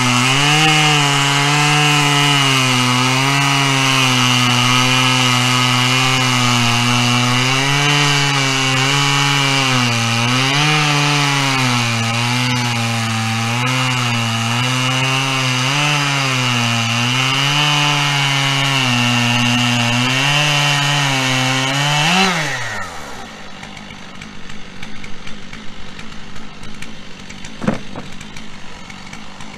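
Stihl chainsaw on a chainsaw mill ripping lengthwise through a pine log under load, its engine pitch wavering up and down as the cut is fed. About two-thirds of the way in it revs briefly as it leaves the cut and the throttle is released, then winds down, leaving quieter handling noises and a single knock near the end.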